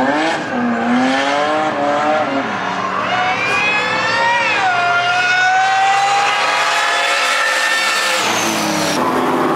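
Car engine accelerating hard, its pitch climbing and dropping back twice as it changes up through the gears, then cutting off near the end with a brief high falling whine.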